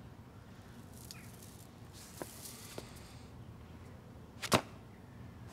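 A few sharp knocks over faint room noise: two light ones a little after two seconds in, then a single loud, sharp knock about four and a half seconds in.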